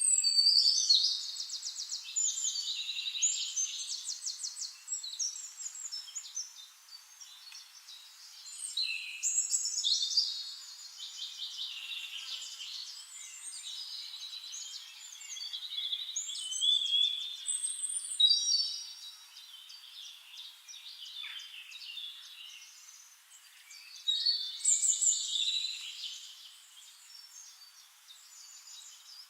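A songbird singing: high-pitched phrases of rapid trills and whistles, each a few seconds long, repeated every several seconds.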